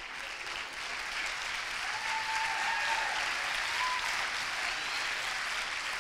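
Audience applauding in a lecture hall, swelling over the first two seconds and then holding steady.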